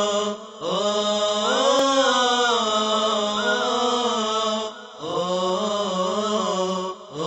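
A cappella madih (Islamic praise song) chanting: voices with no instruments and no percussion sing three long, drawn-out melodic phrases, with short breaths between them.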